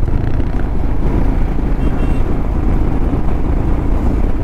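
Motorcycle cruising on a highway: the engine runs steadily under heavy wind rush on the microphone.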